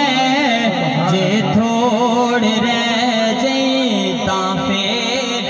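A man singing a naat into a microphone over a loudspeaker: one unbroken devotional melody of long held notes that waver and glide between pitches.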